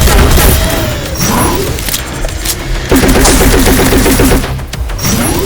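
Rapid bursts of shots like automatic gunfire, over background music.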